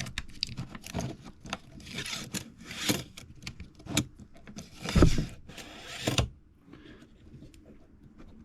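Hand-handling of the opened Milwaukee AutoLock tape measure: a quick run of small plastic-and-metal clicks and short scrapes as the lock mechanism and tape are worked, loudest about five seconds in, then stopping a little after six seconds to only faint ticks.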